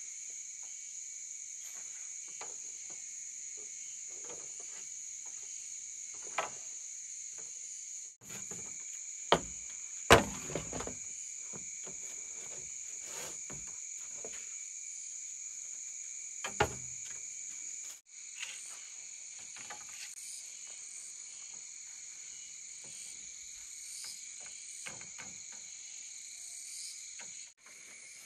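Steady, high-pitched chorus of insects, crickets or similar, with scattered faint clicks and a few sharp knocks, the loudest about ten seconds in. The chorus briefly cuts out three times.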